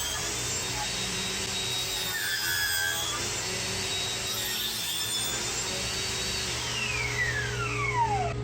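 Table saw cutting notches in 3/4-inch Baltic birch plywood, the blade's steady high whine dipping slightly as it takes each cut. Near the end the whine falls steadily in pitch as the saw is switched off and the blade winds down.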